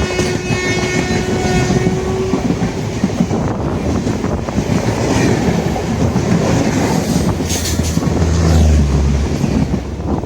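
Running passenger train, with a dense rumble and rattle of the coach over the track. A train horn sounds, one steady note held for about two seconds at the start.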